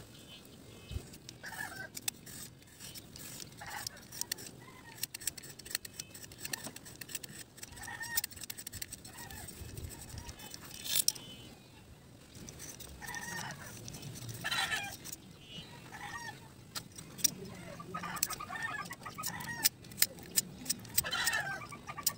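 Utility knife shaving a thin bamboo strip: sharp small clicks and scrapes throughout. Chickens cluck several times in the second half.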